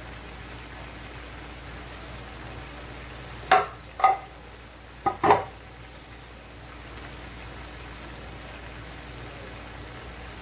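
Bamboo shoots and chicken simmering in sauce in a frying pan on a gas stove, with a steady hiss. A little past a third of the way in, four short loud sounds with a pitched ring come in two quick pairs.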